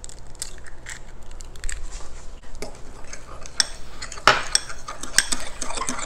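A utensil clicking and scraping against a small glass bowl as an egg is mixed into almond-flour batter by hand, sparse light clinks at first, busier and louder from about two-thirds of the way in.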